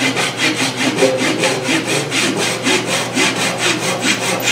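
Pull saw cutting through the small remaining stub of a turned bowl's wooden tenon, in quick, even back-and-forth strokes.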